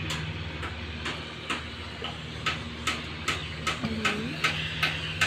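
A regular ticking, about two to three sharp clicks a second, growing louder in the second half, over a steady low hum.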